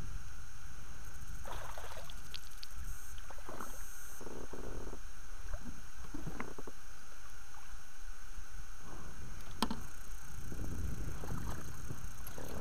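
Water splashing in several irregular bouts as a pike is brought into a landing net beside an inflatable boat, with one sharp click about two-thirds of the way in. A steady low rumble runs underneath.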